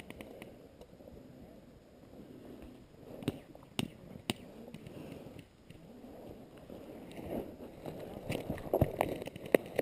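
Dry grass and gear rustling and crunching close to the microphone as a player crawls, with sharp cracks of airsoft gunfire: three about half a second apart a few seconds in, and several more near the end.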